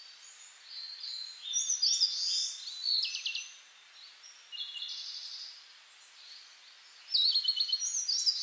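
Songbird singing in four short phrases of high whistled notes and quick trills, with pauses between them.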